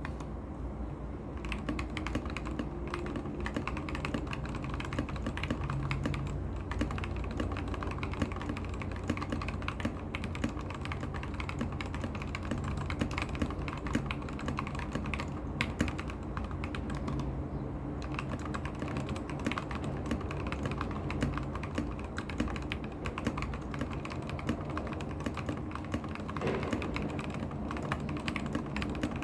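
Continuous fast typing on an RKG68 mechanical keyboard with Gateron Milky Yellow linear switches and PBT keycaps: a dense, irregular clatter of keystrokes that starts a little over a second in.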